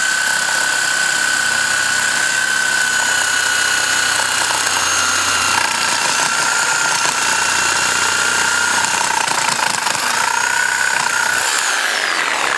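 Corded reciprocating saw running at full speed with a steady high whine, its blade cutting through the car tire and into the aluminum rim beneath the tire bead. The pitch sags briefly about ten seconds in, then the motor spins down near the end.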